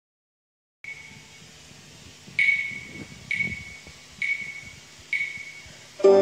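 Four sharp, evenly spaced clicks with a short ringing tone, a steady count-in; near the end a group of violins starts playing pizzicato, plucked notes.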